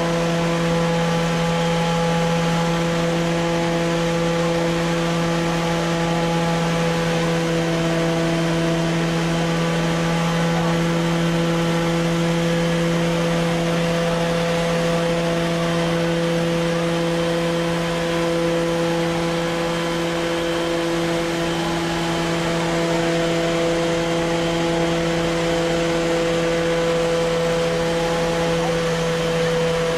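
Truck-mounted turbine water-mist fan running at steady speed: an even, pitched mechanical drone with a hiss of water spray over it.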